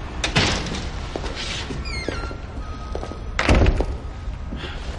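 An office door pushed shut with a heavy thunk about three and a half seconds in, over quiet background music.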